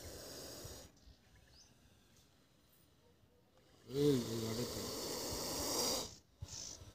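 Spectacled cobra hissing with its hood spread in a defensive display: a soft short hiss at the start, then a loud breathy hiss lasting about two seconds from about four seconds in, with a brief low tone as it begins.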